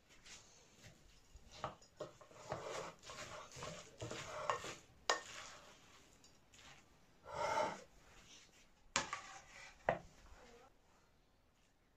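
Wooden spoon stirring a wet rice, tomato and onion filling in a glass bowl: soft squelching and scraping against the glass, with a few sharp knocks of the spoon on the bowl, two of them close together near the end.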